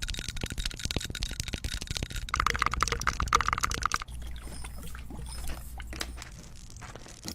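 Cooking sounds: dense crackling, like food sizzling in a pan, with a pulsing sound in the middle. The sound changes abruptly to a quieter, sparser crackle about four seconds in.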